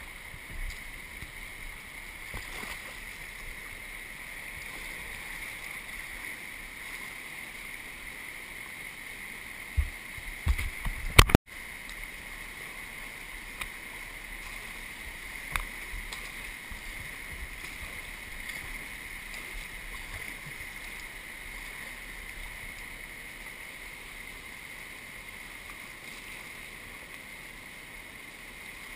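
Steady rush of whitewater rapids picked up by a camera at water level, with a few loud thumps about ten to eleven seconds in and the sound cutting out for an instant just after.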